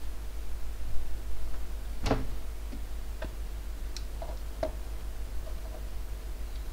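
Light clicks and taps of small plywood parts of a UGears mechanical model kit being handled and pressed together, scattered and irregular, the loudest about two seconds in. A steady low hum lies underneath.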